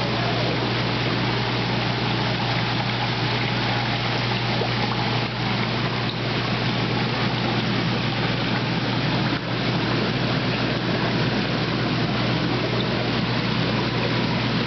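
Steady rush of churning pond water with a low, constant hum underneath, muffled as heard with the microphone underwater among crowding koi.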